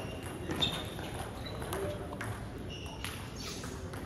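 A table-tennis ball giving a few light, sharp ticks and knocks, roughly one a second, over voices murmuring in the background.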